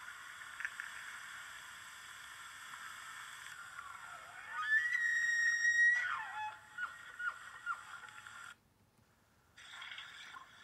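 Bull elk bugling: a whistle that climbs to a high held note about halfway through, then falls away, followed by a handful of short falling calls.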